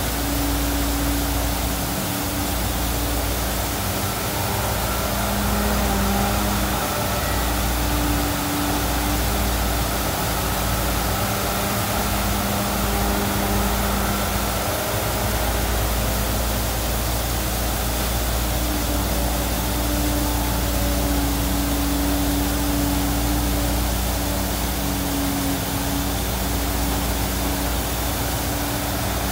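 Sand-and-water slurry gushing steadily out of discharge pipes and spilling over a steel chute, a continuous rushing, with the engines of the pump and excavators running underneath.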